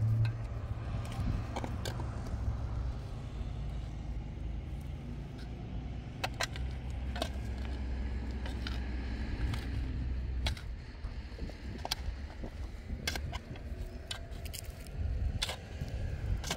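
A motor vehicle's engine running steadily at low speed, its note shifting about ten seconds in, with scattered sharp clicks and knocks over it.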